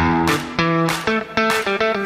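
Background music: an instrumental with quick, separate notes over a low bass line.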